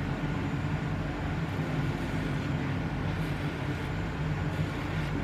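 Steady low hum with an even background rumble.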